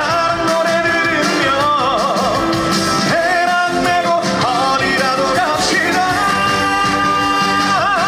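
Upbeat twist-style trot song played live: a lead melody line with wide, wavering vibrato over a full band backing with a steady beat.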